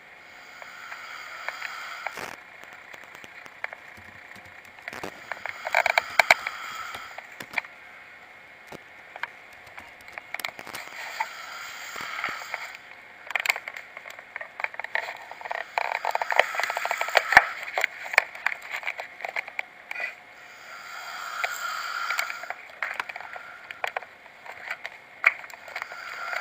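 Snoring: raspy, crackling breaths that swell and fade about every five seconds.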